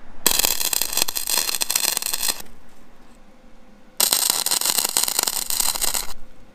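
Wire-feed arc welding with a Vulcan OmniPro 220 running .035 wire: two short touch-up beads on a steel tube joint, each a steady crackle about two seconds long. The second starts suddenly about four seconds in, after a pause.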